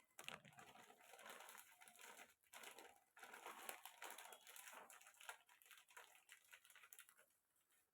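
Faint, irregular crinkling of plastic food packets being handled.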